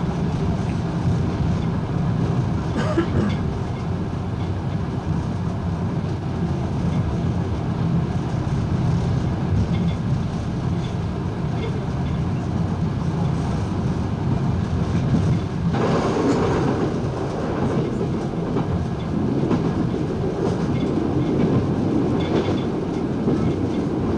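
Diesel multiple unit running at speed, heard from the driver's cab: a steady engine and wheel-on-rail drone with an occasional click from the rails, growing louder and harsher about two-thirds of the way through.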